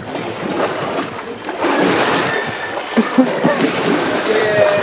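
Water splashing and sloshing as an elephant wades through a shallow river, growing louder about two seconds in.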